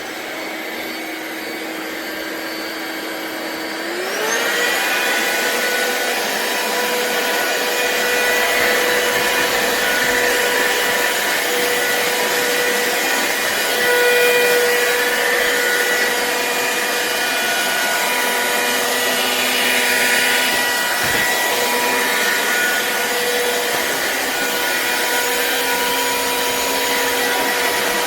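Black+Decker POWERSERIES+ 20V MAX cordless stick vacuum running with a steady motor whine and airflow hiss. About four seconds in, the motor speeds up: the whine rises in pitch, gets louder, then holds steady.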